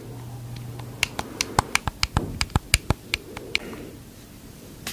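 Stomach growling and gurgling: a low steady rumble for about the first second, then a quick run of sharp pops and clicks.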